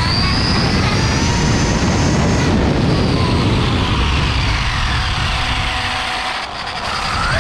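Arrma Typhon RC car's Castle 1515 brushless motor and drivetrain whining at high speed over a steady rush of wind and tyre noise, the pitch rising and falling several times as it speeds up and slows. The sound drops briefly about six and a half seconds in, then the whine climbs again near the end.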